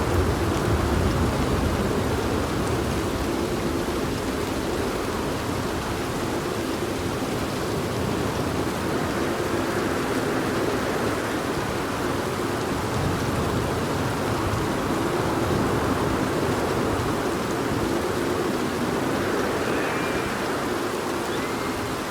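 Steady heavy rain, with a low thunder rumble dying away in the first second or so.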